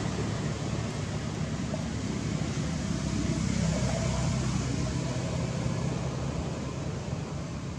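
Steady low rumble with an even hiss of outdoor background noise, with no distinct events.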